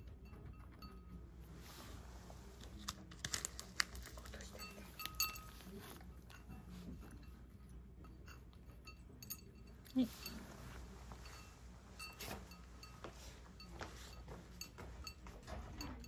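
A cat eating from a ceramic bowl, chewing and crunching, with light clinks of fingers and food against the bowl. There are a few sharper knocks, the loudest about ten seconds in.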